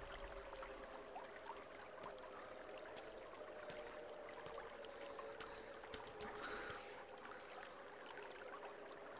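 Faint, hushed background ambience from a horror-film soundtrack: a low steady drone with scattered soft clicks and ticks.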